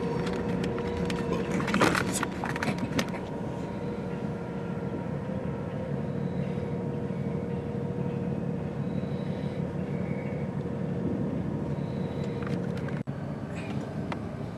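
Steady road and engine noise inside a moving car's cabin, with a faint steady whine. A few clicks and knocks come in the first three seconds, and the sound cuts out for an instant near the end.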